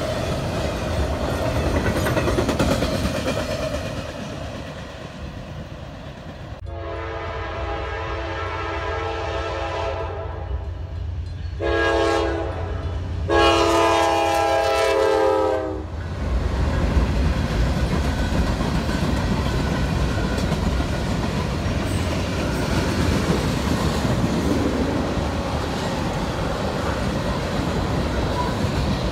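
Freight trains passing close by. The tail of one train rumbles and clatters past, then a Norfolk Southern diesel locomotive sounds its multi-note horn from about 7 s in: a fainter blast, then a short and a long loud blast ending about 16 s in. The locomotives then pass with a heavy rumble, and the freight cars clatter by over the rails.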